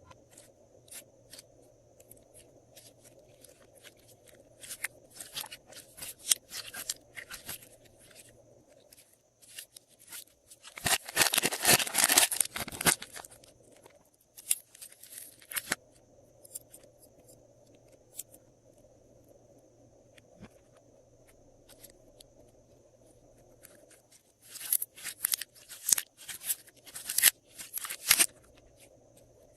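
Glossy slime being squished and kneaded by hand, crackling with quick pops of trapped air. The crackling comes in bursts: loudest a little past ten seconds in, again about six seconds in, and once more near the end, with only scattered clicks between.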